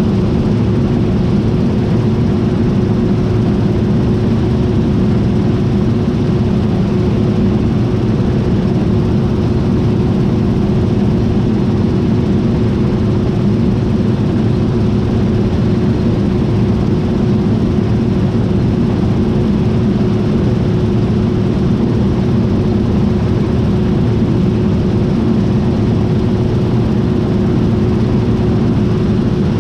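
John Deere T660i combine harvester running steadily: a constant heavy drone with one steady tone held on top of it.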